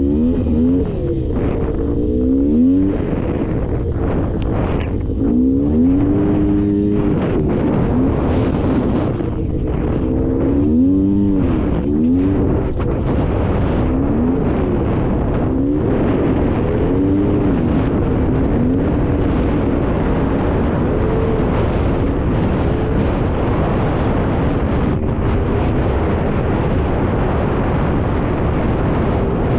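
Polaris Scrambler 400 two-stroke ATV engine under way, revving up and down again and again over the first half, then holding a steadier pitch.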